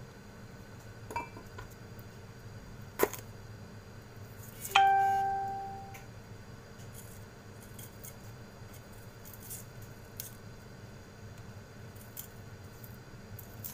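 A kitchen knife peeling garlic cloves by hand, with a few small knife clicks. About five seconds in comes one sharp, ringing clink, like glass or metal being struck, that fades over about a second.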